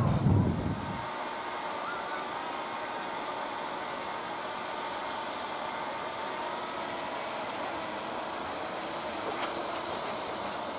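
Gr-280 narrow-gauge steam locomotive and its passenger coaches coming along the line: a steady soft hiss of steam and rolling noise, with no distinct exhaust beats. A louder low rumble in the first second cuts off abruptly.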